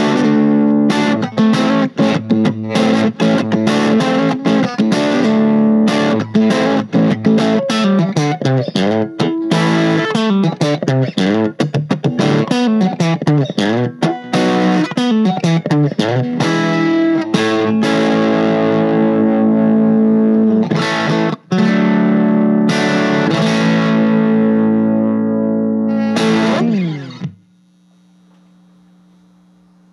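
Electric guitar played through a 1965 Fender Champ tube amplifier, miked at the speaker: a long run of picked notes and chords. About 27 seconds in the playing stops with a quick slide down the neck, leaving a faint steady low tone.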